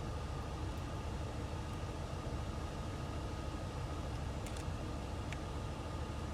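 Steady low rumble of an idling engine, with a couple of faint clicks near the end as a small screw is driven into the flashlight head under pressure.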